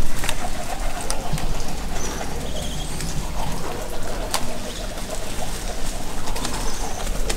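Birds calling, short faint notes over a steady noisy background with a low rumble and a few sharp clicks.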